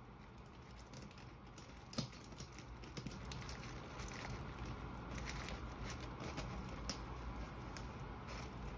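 Quiet rustling and crinkling of paper and plastic basket filler with a few light taps and clicks as gift items are pushed into place in a plastic basket. The rustling gets a little louder and busier from about three seconds in.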